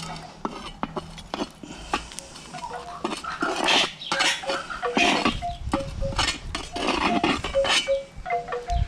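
Metal cookware clinking and scraping: a camp cooking pot and its lid being handled over the fire. Short, clear ringing notes at a few different pitches sound among the clinks.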